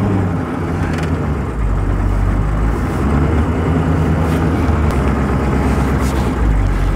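Engine of a flatbed tow truck running steadily, a low drone that shifts slightly in pitch a couple of times.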